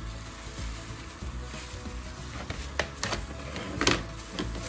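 Clear plastic gloves crinkling and wet raw chicken being handled on a plastic tray as the spatchcocked bird is turned over, with a few sharper crackles about three to four seconds in, the loudest near four seconds. Quiet background music underneath.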